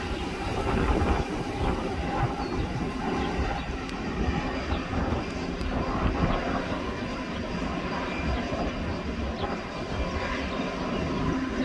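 Steady turbine whine from a parked jet airliner, over a gusty rumble of wind on the microphone.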